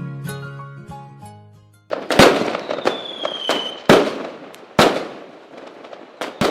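Plucked-string music fades out over the first two seconds. Then firecrackers go off: four sharp bangs, each followed by crackling, with a high falling whistle between the first and second bangs.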